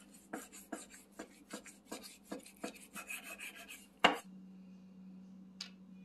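Kitchen knife trimming fat off a raw brisket in short rasping strokes, two or three a second, the blade scraping through fat and onto the wooden cutting board. About four seconds in there is one loud sharp knock, followed by a faint steady hum.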